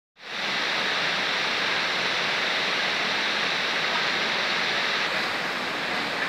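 Water rushing over a small river weir: a steady, even rush.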